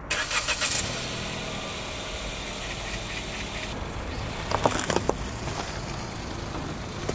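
Kia Ray small car's engine running steadily, with a few short clicks in the first second and a cluster of short knocks about five seconds in.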